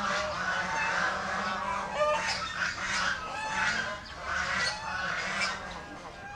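Domestic fowl calling: many short calls overlapping and repeating throughout.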